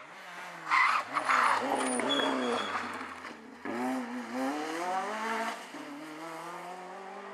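Renault Clio rally car engine dropping in revs as it slows for a corner, then revving up again as it accelerates away, with a loud crackle about a second in. Its note breaks off about three and a half seconds in and starts low again, rising as the car pulls away.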